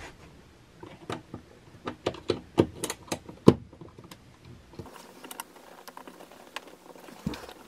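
Screwdriver clicking and scraping against a circuit breaker's terminal screw in an RV power panel, a run of irregular sharp clicks and knocks that thins to fainter ticking in the second half. The screw is overtightened and hard to turn.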